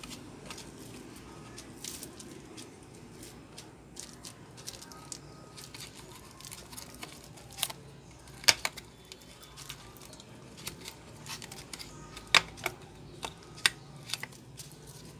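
A thin plastic pry card being worked between a Huawei Y9 Prime's frame and its glued LCD: scattered sharp clicks and scrapes of plastic on the phone's edge. A few sharper snaps stand out around the middle and near the end, over a faint steady low hum.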